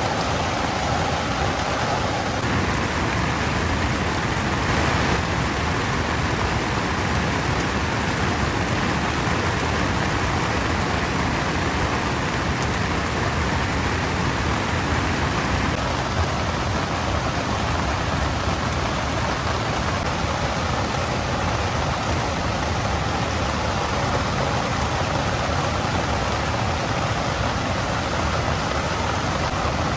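Heavy rain falling, a dense, steady hiss with no let-up.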